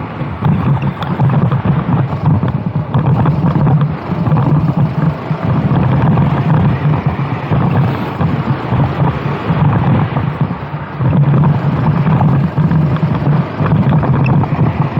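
Racing kart engine running hard, heard over wind buffeting on the microphone. It eases off briefly about four seconds and again about eleven seconds in.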